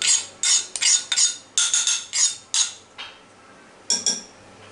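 Metal spoon scraping and tapping against a dish while scooping crushed green chillies onto raw mutton: a quick run of sharp strokes about two a second, a pause, then one more stroke near the end.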